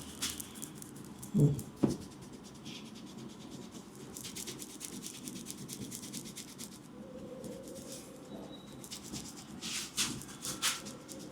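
Hands massaging a head: a steady, rapid scratchy rubbing of palms and fingers over skin and hair, with two louder knocks about a second and a half in.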